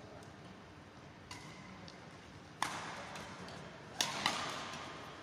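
Badminton rackets hitting the shuttlecock in a rally, sharp cracks that echo around a large sports hall. A faint hit comes about a second in, then loud hits near the middle and again near the end, the last two in quick succession.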